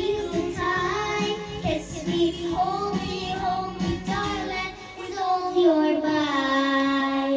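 A young girl singing into a microphone over a backing music track, her line ending in a long held note near the end.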